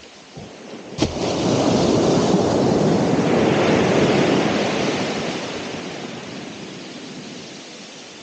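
A single ocean wave breaking on the shore: a sudden crash about a second in, a loud rushing wash for a few seconds, then a slow fade as the water draws back.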